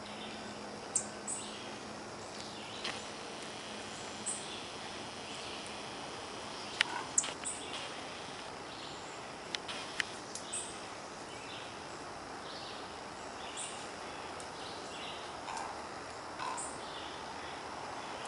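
Small birds giving scattered short, high chirps over a steady background hiss, with a few sharp clicks near the middle.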